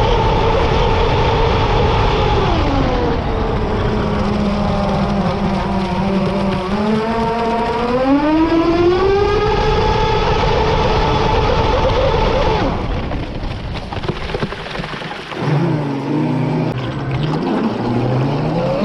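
RC boat's motor heard from the bow over rushing water and hull noise, its whine rising and falling in pitch as the throttle changes. About two thirds in the water rush drops away and the motor sinks to a low, wavering note, then climbs again at the very end.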